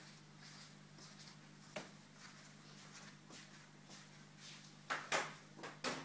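A faint steady low hum with scattered light clicks and taps; several sharper, louder clicks come close together near the end.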